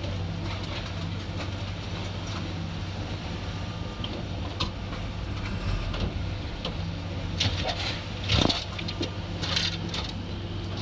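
An engine idling steadily under scattered clanks and knocks of scrap metal being unloaded, the loudest about two-thirds of the way in.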